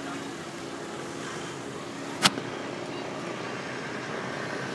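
Street traffic: vehicle engines running steadily, with one sharp click a little over two seconds in.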